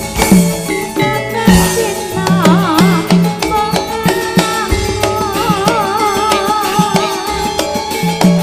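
Campursari band playing a langgam live, with drum strokes under steady instrumental tones. A woman's voice comes in about two seconds in, singing with a wide vibrato.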